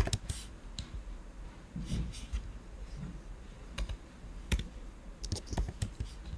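Typing on a computer keyboard: irregular single keystrokes, then a quicker run of several taps near the end.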